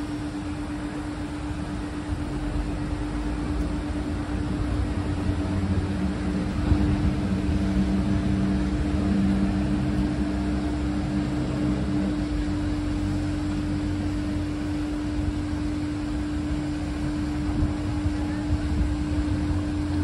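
Canal tour boat's motor running at low speed as the boat moves through a lock: a steady hum over a low rumble, with a second lower tone joining for a few seconds about a third of the way in.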